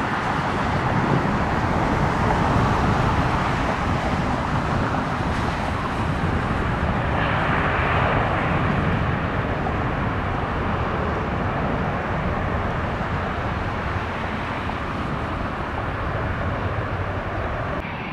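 Distant jet engines of a Boeing 737 on its landing roll: a steady jet rumble that swells about seven seconds in, as the engines kick up dust behind them.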